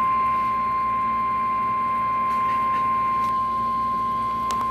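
NOAA Weather Radio 1050 Hz warning alarm tone: a single steady high tone held without a break, the alert signal that comes ahead of a severe thunderstorm warning broadcast. Faint hiss and a low hum lie beneath it.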